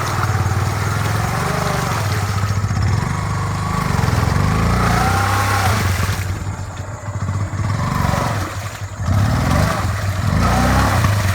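Motorcycle engine running while riding, its revs rising and falling a few times and easing off briefly in the second half.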